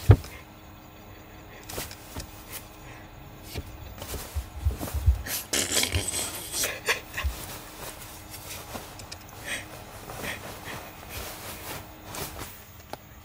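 Rustling and soft irregular thumps of a cat playing rough on a padded mattress, with the loudest scraping rustle about six seconds in.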